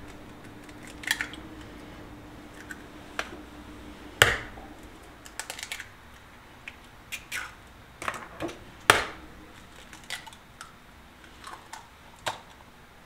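Raw eggs being cracked one after another into a ceramic bowl: several sharp cracks of eggshell, with small crackles and clicks as the shells are broken open.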